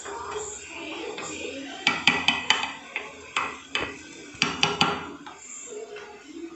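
A spoon stirring thick melted chocolate in a glass bowl, clinking and scraping against the glass in quick knocks, bunched about two seconds in and again after four seconds, with a few single knocks between.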